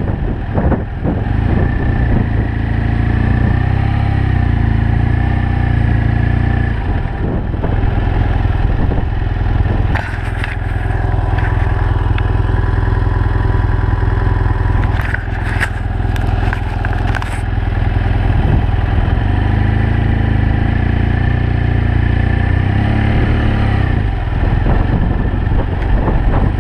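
BMW F 800 GS Adventure's parallel-twin engine running steadily under way, mixed with wind rushing over the camera microphone. A few short crackling knocks come about ten seconds in and again around fifteen to seventeen seconds in.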